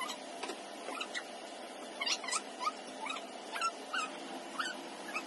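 Small puppy whimpering in a string of short, high squeaks, two or three a second, over a steady low hum.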